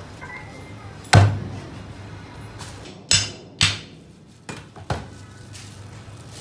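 Heavy cleaver chopping and being knocked through a giant flathead catfish head on a wooden chopping block. There are five hard blows: the loudest about a second in, two close together around three seconds, and two lighter ones near five seconds.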